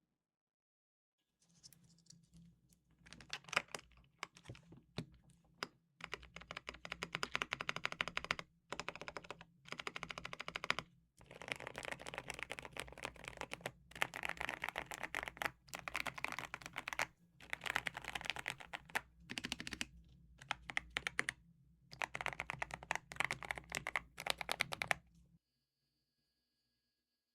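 Typing test on a Redragon Wyvern LCD Pro mechanical keyboard whose keycaps have just been fitted with O-rings to soften the keystrokes, which had been too loud. Fast keystrokes come in bursts of a few seconds with short pauses, starting about a second and a half in and stopping near the end.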